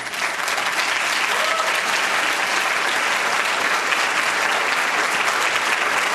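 Audience applauding: dense, steady clapping that starts suddenly and stays loud.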